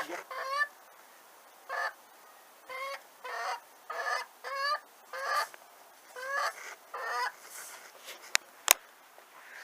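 Backyard poultry calling: about ten short, repeated calls, each under half a second. There is a sharp click near the end.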